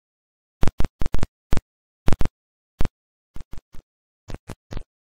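A string of about fifteen sharp strikes at uneven spacing, with dead silence between them; the first dozen or so are loudest and the last few are quieter.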